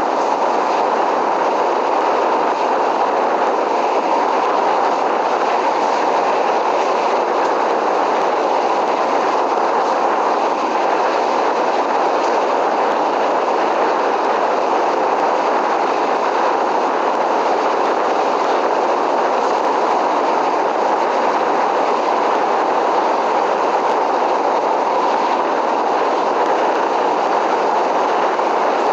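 Train in motion: a steady, even running noise that holds at the same loudness throughout, with no distinct clicks or horn.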